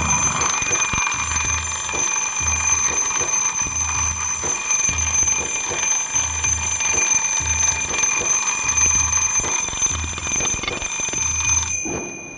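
Twin bell alarm clock ringing: its hammer rattles rapidly against the two metal bells in one loud, steady ring that cuts off sharply near the end.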